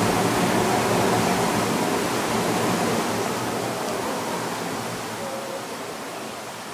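Steady rushing noise of a working water mill, the water driving it and the runner millstone turning, with a low hum under it. It fades gradually over the second half.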